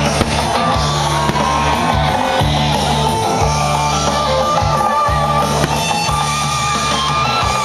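Loud rock music with guitar and a steady bass line.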